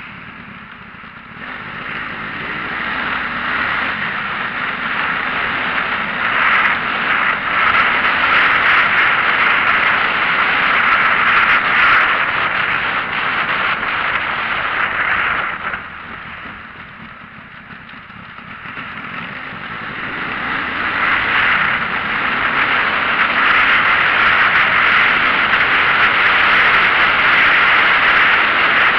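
Rushing road and wind noise from a moving vehicle, swelling as it gathers speed, dropping sharply a little past halfway through, then building again.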